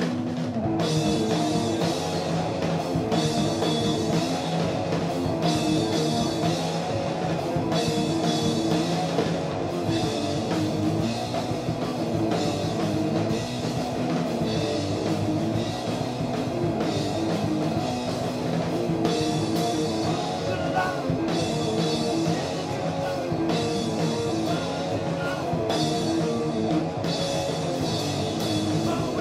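Live heavy rock from electric guitar and a Yamaha drum kit, coming in at full volume right at the start, with cymbal crashes about every second and a half.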